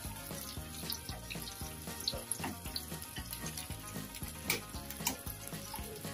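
Hot roasted chicken thighs sizzling and crackling in their fat in a foil-lined pan, with scattered sharp pops, over background music with a steady beat.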